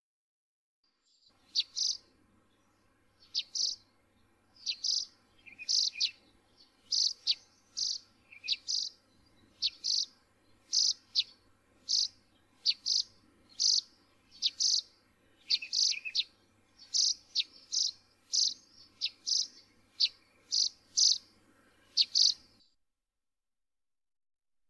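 A bird calling over and over: short high chirps, about one or two a second, starting about a second in and cutting off suddenly near the end, over a faint steady hum.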